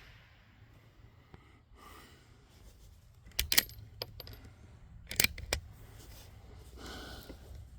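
Zastava M922 bolt-action .22 rifle's bolt being worked by hand between shots: two sharp metallic clacks about three and a half seconds in, then two more a little after five seconds.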